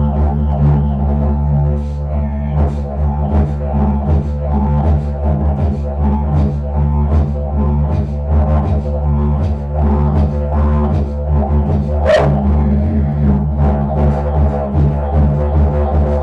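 Blue agave flower-stalk trumpet played like a didgeridoo with circular breathing: a continuous low drone, pulsed rhythmically throughout, with one sharp, higher accent about twelve seconds in.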